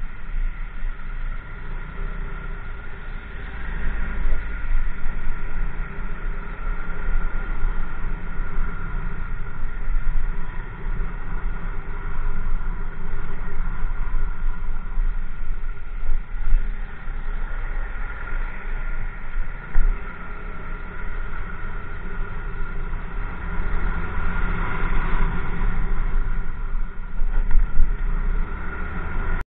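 Motorcycle engine running steadily while riding, under a heavy, fluctuating wind rumble on the helmet-mounted microphone.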